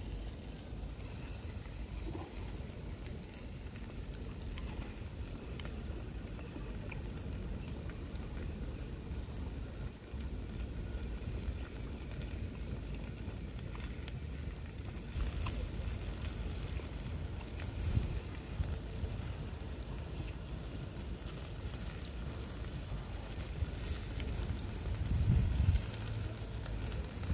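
Wind buffeting the microphone: a low rumble with gusts about two-thirds of the way through and again near the end.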